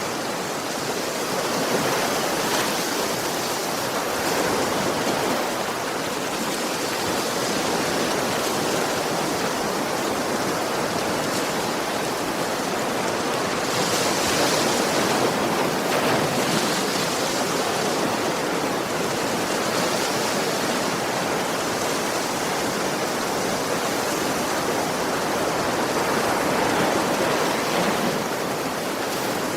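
Sea waves washing onto a shore: a continuous rush of surf that swells slightly now and then.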